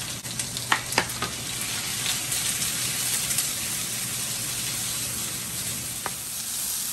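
Onions and bell peppers sizzling in hot oil in a pan on high heat as they are sautéed, a steady frying hiss. A few sharp clicks of a utensil against the pan come about a second in and once more near the end.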